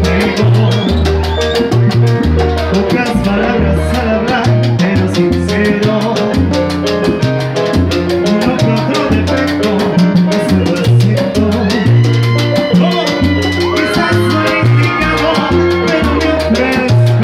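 Live salsa band playing, with a bass line of repeated low notes under timbales and other percussion, brass and a lead singer.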